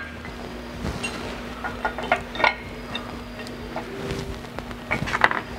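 Light metallic clinks and taps as a metal mounting plate is fitted over bolts on a sprayer boom bracket, scattered irregularly, over a steady low hum.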